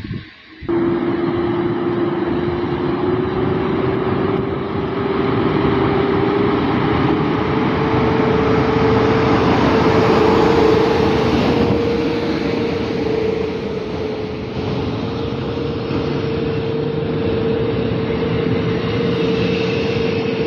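EP09 electric locomotive and its intercity coaches rolling slowly past, drawing in to stop, with steady wheel-and-rail noise. A loud whine rises in pitch over the first several seconds, then holds steady. The noise is loudest as the locomotive goes by.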